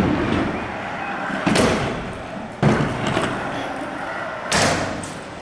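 Stunt scooter wheels rolling on concrete, with several hard clattering impacts, roughly one every second or so, as the scooter lands and strikes the ramps and ground.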